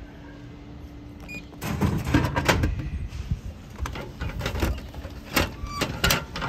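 Bread vending machine at work: a steady low hum, then from about a second and a half in a motorised mechanism whirring and clunking as it dispenses. Several sharp clicks and knocks follow.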